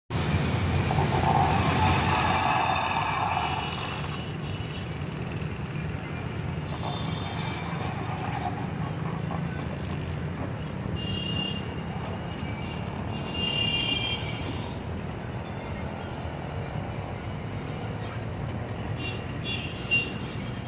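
Pakistan Railways diesel locomotive hauling a passenger train along the tracks: a steady low rumble, louder for the first few seconds. Brief high-pitched squeaks come now and then, and there is a sharp click near the end.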